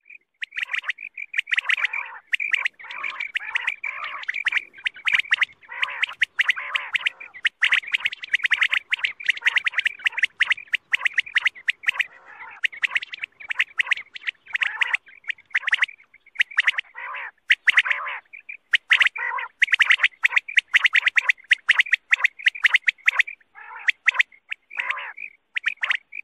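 Quail calling: a dense, nearly unbroken run of short, sharp chirping notes with only brief pauses, the kind of call played to lure quail for hunting.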